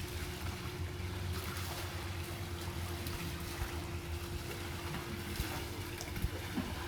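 Swimming-pool water sloshing and splashing, set moving by earthquake shaking, over a steady low hum.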